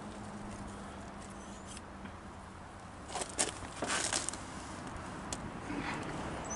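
Handling noise from hands working a cable and the carpet in a car trunk: soft rustling and scraping, with two brief louder rustles about three and four seconds in.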